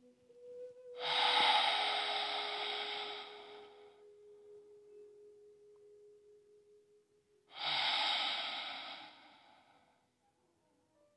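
A person breathing out long and audibly twice, each breath lasting about three seconds and fading away, the first about a second in and the second about six seconds later. Faint steady ringing tones sit underneath.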